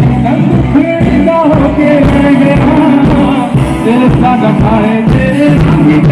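A band playing a song: a singer's melody over bass and a steady drum beat.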